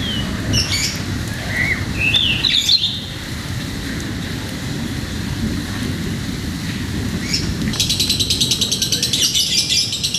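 Steady rain falling on a wet courtyard, with caged birds calling over it: a few short chirps and whistles in the first three seconds, then a fast, rapidly repeating high chatter from about eight seconds in.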